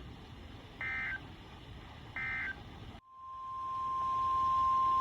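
Two short bursts of Emergency Alert System SAME digital data, the warbling end-of-message code that closes a NOAA Weather Radio alert. After a brief dropout, the steady 1050 Hz weather radio warning alarm tone starts, swells up over about a second and holds, heralding the next warning.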